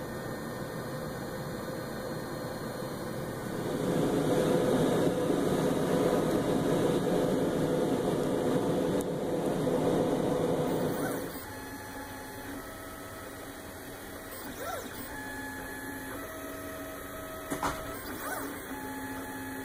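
A steady rushing noise, louder from about four seconds in, cuts off about eleven seconds in. A 3D printer's stepper motors take over, whining in steady tones that jump from one pitch to another as the print head moves.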